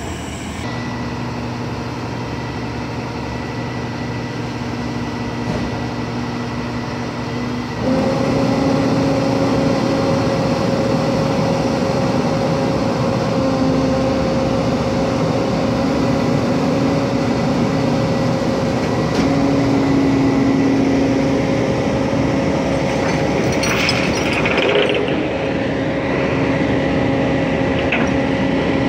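Flatbed tow truck's engine running steadily, then speeding up about eight seconds in and holding at the higher pitch as the hydraulic bed is tilted down to the ground. A few short metal clanks near the end.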